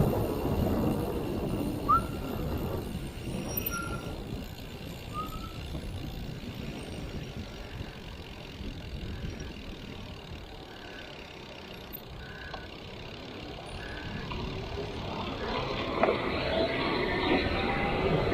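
Road traffic noise: a steady rumble of passing vehicles, with faint short beeps about once a second in the middle and the noise growing louder near the end.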